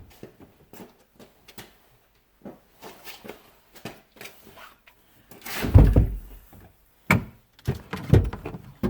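Light clicks and knocks of parts being handled in a car's trunk battery compartment, then a heavy thud about six seconds in, followed by two more sharp knocks.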